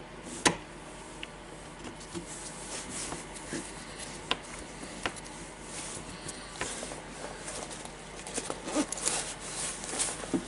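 Scattered small clicks, taps and rubbing of plastic parts as a cordless drill's direction switch and brushless motor are pressed by hand into its plastic housing half. A sharp click about half a second in is the loudest, and the clicks come more often near the end.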